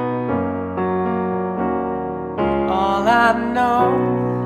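Digital piano playing slow held chords, a new chord struck about every second, with a brief wordless sung phrase about three seconds in.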